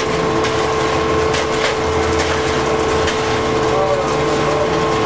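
Concrete pump running steadily while pushing concrete through its hose: a steady engine whine with a low pulsing that comes and goes every second or so, and scattered clicks and knocks.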